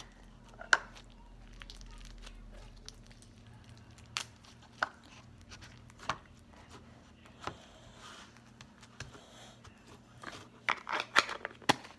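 Slime being handled, pulled apart and pressed into a plastic container by hand: scattered sticky crackles and pops, with a quick run of them near the end.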